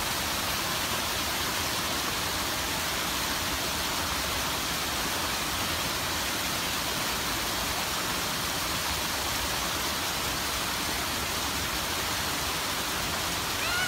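Small waterfall spilling into a shallow, rocky stream: a steady, even rush of falling and running water.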